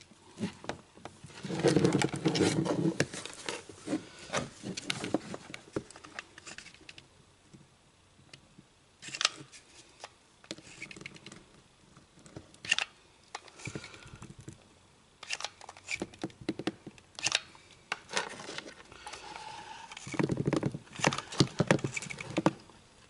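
Hand-handling noises: irregular rustling with clusters of sharp clicks and knocks, loudest in two busy spells near the start and near the end, with scattered clicks between.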